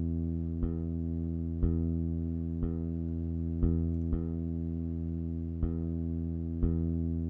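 Kick drum and bass tracks playing back from a music project: a bass holds one low sustained note while the kick hits about once a second, with one extra kick about four seconds in.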